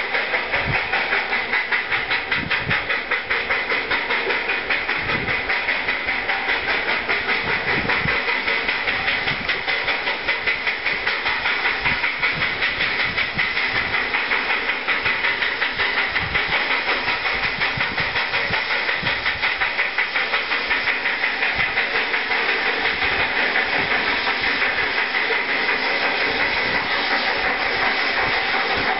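Black River and Western steam locomotive No. 60, a 2-6-0, working hard: a rapid, even beat of exhaust chuffs with steady steam hiss over it.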